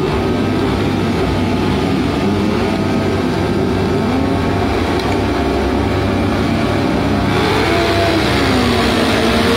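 A grid of sport motorcycles revving on the start line, several engine notes rising and falling together, then launching off the line about seven seconds in as the sound swells into full-throttle acceleration.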